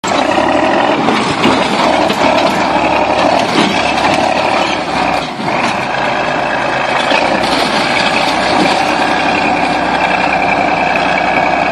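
A bulldozer's diesel engine running steadily, with a brief dip in loudness about five seconds in.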